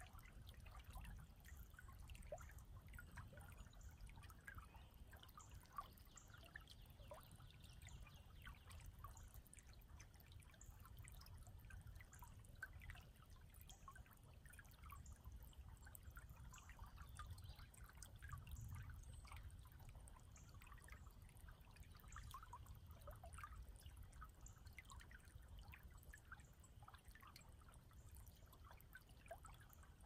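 A small creek babbling faintly: a steady trickle of many small plinks and splashes, with a low rumble underneath.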